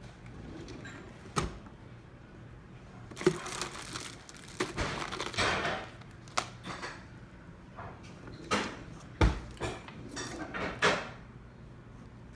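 Handling noises: a few sharp knocks, the loudest about nine seconds in, and stretches of rustling and scraping.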